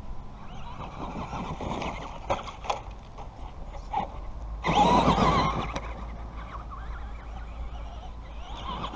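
Traxxas Stampede RC monster truck's motor whining, its pitch gliding up and down with the throttle, with the tyres churning through loose dirt; loudest about five seconds in as the truck passes close.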